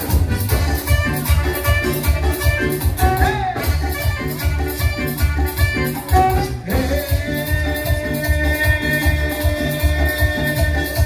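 Loud Latin dance music from a saxophone-led band: a steady pulsing bass beat under horn melody, with a long held note coming in about two-thirds of the way through.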